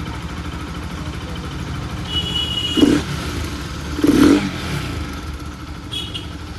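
Bajaj Pulsar RS200's single-cylinder engine idling steadily, revved briefly twice in the middle.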